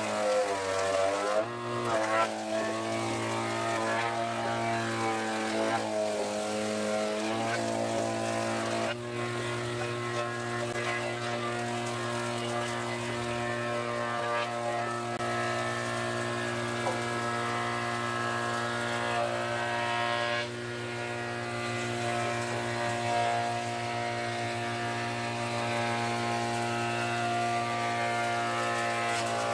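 Electric combination woodworking machine (circular saw and planer) running steadily while linden boards are fed through it. During the first several seconds its pitch sags and recovers several times as the cuts load the motor. After that it runs steadily with a brief dip about two-thirds of the way in.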